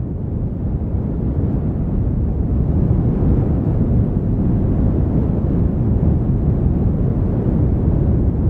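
A steady low rumble of noise, swelling over the first second or two and then holding steady.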